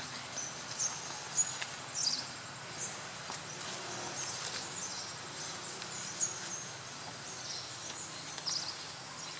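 Outdoor ambience: a steady background hiss with scattered short, high chirps, the loudest about one and a half and two seconds in.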